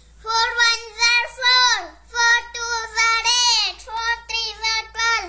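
A child's voice chanting the four times table in a sing-song tune, three phrases, each falling in pitch at its end.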